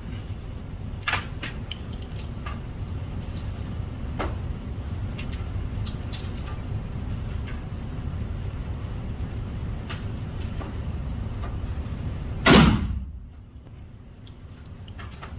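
A single loud gunshot about twelve seconds in, from a firearm being shot at a paper target. Before it there is a steady low rumble with a few small clicks.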